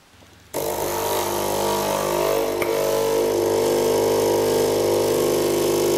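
Capsule coffee machine brewing: its pump runs with a loud, steady buzzing hum while coffee pours into a cup. The hum starts abruptly about half a second in and cuts off suddenly at the end.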